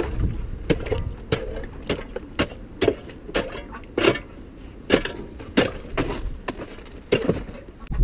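Ice being broken up in the animals' frozen water container: a run of sharp knocks and cracks, roughly one or two a second.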